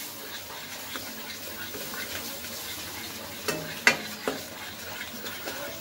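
Wooden spatula stirring and scraping thick besan roasting in ghee in a kadai, over a soft steady frying sizzle. A few sharper knocks of the spatula against the pan come about three and a half to four seconds in, one of them the loudest sound.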